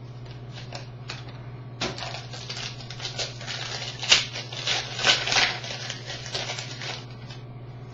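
Baseball trading cards being handled and flipped through by hand: a run of quick clicks and rustles of card stock, starting about two seconds in and stopping about seven seconds in, over a steady low hum.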